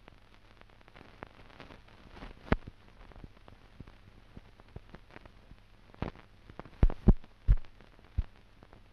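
Scattered clicks and pops over a faint low hum, typical of crackle on an old optical film soundtrack. A louder run of pops comes in the last third.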